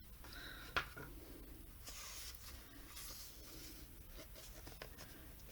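Faint handling sounds of cardboard canvas boards being shuffled and moved, light rubbing and rustling with a sharp tap a little under a second in.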